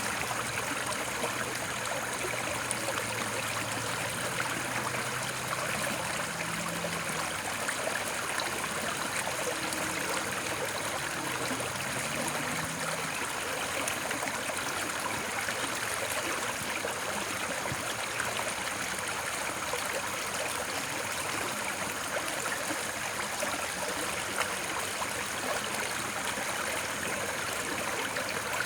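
Steady rushing and trickling of flowing stream water, even and unbroken. A faint low drone sits under it for several seconds in the first half.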